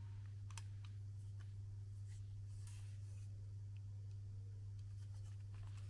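Faint clicks and scuffs of hands handling and turning over an Atomos Ninja V monitor-recorder, over a steady low hum.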